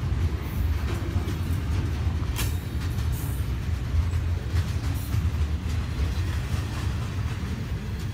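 Train running on the rails: a steady low rumble, with a few sharp clanks about two and a half and five seconds in.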